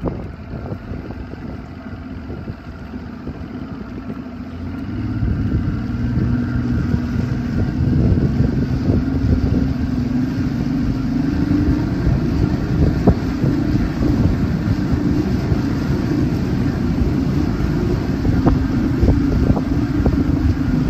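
Bass boat's outboard motor running under way, the boat speeding up and the sound growing louder over the first several seconds, then holding steady, with wind buffeting the microphone.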